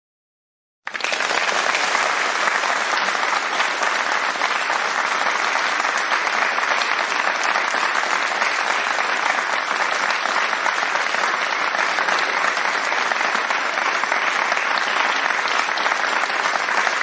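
Applause: many hands clapping in a dense, steady clatter that starts abruptly about a second in.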